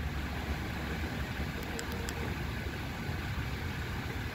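Power sliding doors of a 2017 Chrysler Pacifica opening by key fob: a faint motor whir with a few light clicks about two seconds in, over a steady low rumble.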